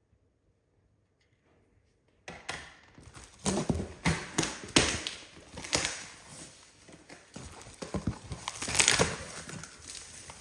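A cardboard package being handled and opened, starting about two seconds in: irregular knocks and taps with scraping and rustling, the loudest about halfway through and again near the end.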